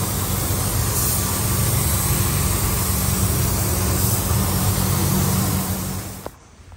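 Steady hiss of a gravity-feed paint spray gun spraying paint in a spray booth, over the steady rush and low hum of the booth's air. The sound stops abruptly about six seconds in.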